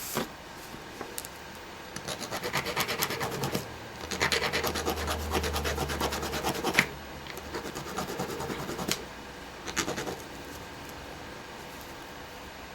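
Small file scraping back and forth on the metal leads of a laptop power jack, scuffing them so solder will stick. It comes in several runs of quick strokes and stops about ten seconds in.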